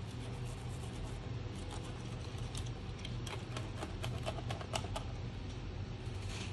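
Knife cutting along a large tuna's back, with irregular light clicks and ticks as the blade works along the fin line, over a steady low hum.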